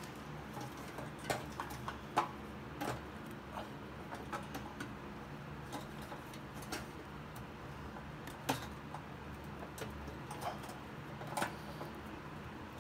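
Scattered, irregular light clicks and taps of hands working a fuel line and its fitting onto a motorcycle's in-tank fuel pump, over a low steady hum.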